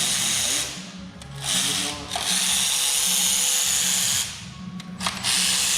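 Power tool running in repeated bursts of half a second to two seconds, with short pauses between, as bolts come out of a Chevrolet LT1 V8 during its teardown.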